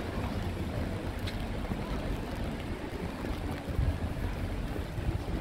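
Steady hiss of rain falling on a wet street, with a low fluctuating rumble of wind on the microphone.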